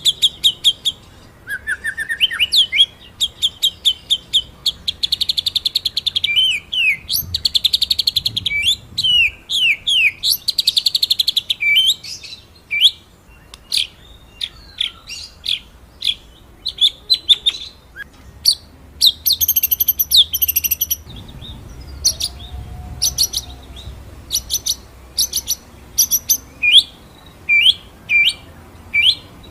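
White-rumped shama (murai batu) singing: rapid rolling trills mixed with loud, sharp, high whistled 'shot' notes in quick series, with several buzzy rattles about a second long.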